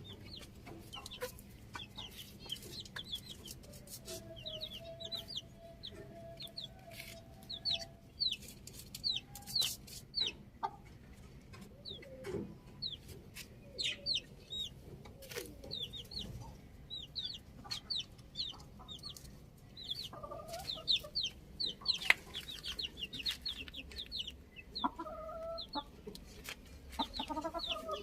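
Chickens clucking and calling while they feed, with many short high chirps throughout and scattered sharp clicks.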